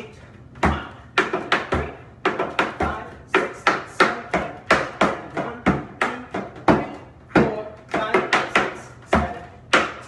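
Metal taps on tap shoes striking a plywood tap board while dancing a time step: quick clusters of sharp clicks and heel drops in an even rhythm, starting about half a second in.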